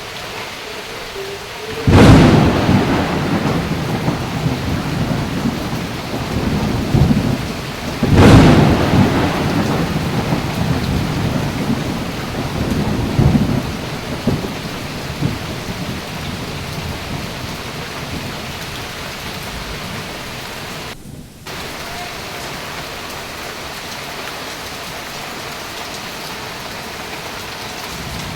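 Steady rain falling, with two sharp thunderclaps about 2 and 8 seconds in, each followed by a rolling rumble that dies away over several seconds.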